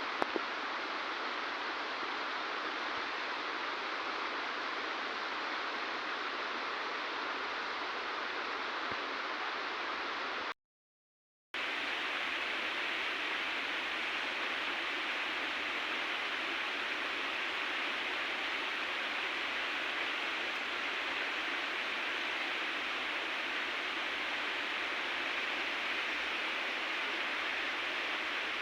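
River water rushing steadily. It cuts out completely for about a second, roughly ten seconds in, then carries on.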